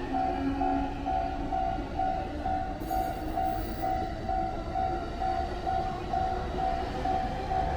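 Japanese level-crossing warning bell ringing steadily at about two strikes a second, over the rumble of a train passing the crossing.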